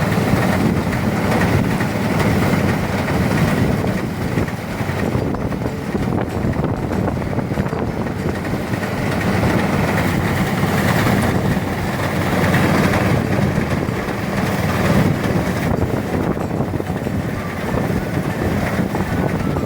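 Motorized rice threshing machine running steadily, its engine and threshing drum giving a continuous mechanical rumble.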